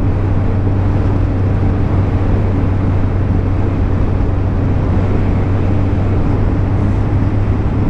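Honda CBF600's inline-four engine running at a steady pitch while the motorcycle cruises at constant speed, with a haze of riding noise around it.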